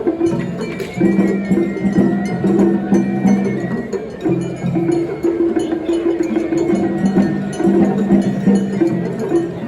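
Traditional Japanese festival music: a held, stepping melody over steady percussion strikes.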